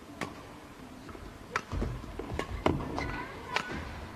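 A badminton rally: a series of sharp racket-on-shuttlecock hits at uneven intervals, with a low rumble rising underneath from about halfway through.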